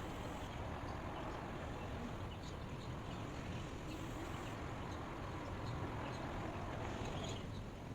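Steady white-noise hiss with an even, unchanging level, sprinkled with faint, scattered high-pitched chirps.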